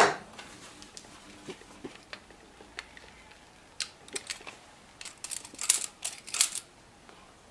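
Hard parts being handled, knocking and clicking: one sharp knock at the start, scattered small clicks, then a denser run of clicks and rattles near the end. No saw motor is running.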